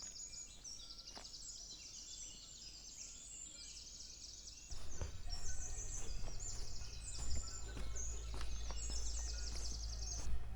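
A quiet, dense chorus of high, rapidly repeated chirps and trills. About halfway through, a low steady rumble joins in, with scattered soft clicks.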